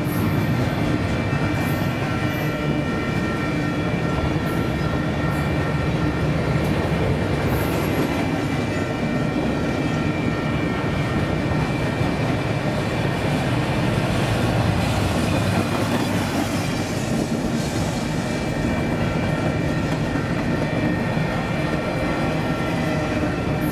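Loaded double-stack intermodal well cars rolling past at track speed: a steady rumble of steel wheels on the rails, with a few thin, steady high tones over it.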